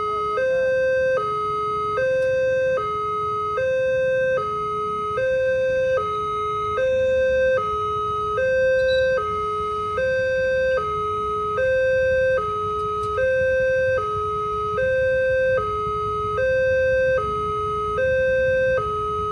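Railway level-crossing warning alarm sounding a steady two-tone hi-lo siren, the two notes switching back and forth a little under once a second. It signals that the crossing barrier is closing or closed for an approaching train.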